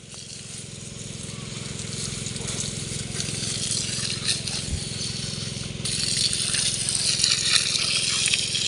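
Water jetting from perforated spray-hose (spray tape) irrigation lines onto soil and leaves: a steady hiss and patter that gets louder about six seconds in. A steady low hum runs underneath.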